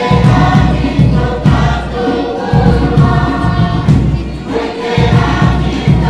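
Pukapukan group song: many voices singing together in held, harmonised phrases over a rhythmic low beat, accompanying a dance.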